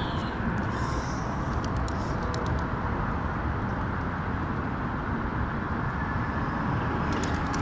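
Steady city street background noise, mostly road traffic, with a few faint clicks.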